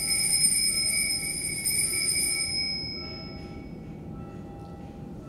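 Altar bell rung at the elevation of the host during Mass: a bright, high ringing tone, sounded again about two seconds in, then fading away by about three seconds in.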